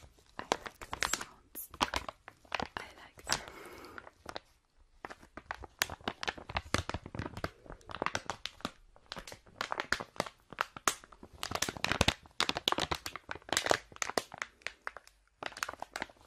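Close-miked crinkling and crackling of a crinkly material being handled: dense, irregular sharp crackles with a few brief pauses.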